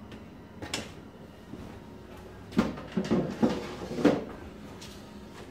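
Plastic trays of an Excalibur food dehydrator knocking and scraping as a loaded tray is slid into the machine: a light click about a second in, then a cluster of clattering knocks around the middle.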